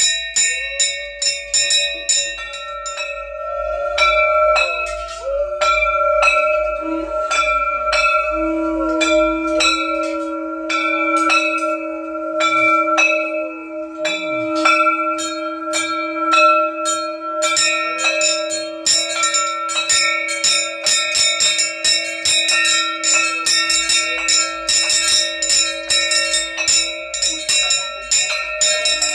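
Brass puja bells rung rapidly and without pause, several strikes a second, each ringing on at the bell's own pitches. A long, steady low tone sounds alongside them from about eight seconds in until near the end.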